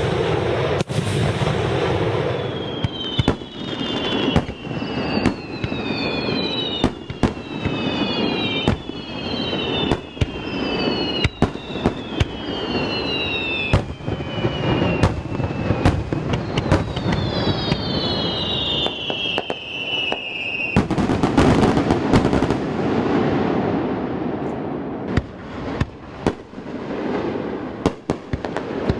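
Aerial fireworks display: a rapid string of shell bursts over continuous crackling, with many falling whistles overlapping from about three seconds to twenty seconds in. Just past twenty seconds the whistles stop and a dense, loud barrage of bursts follows.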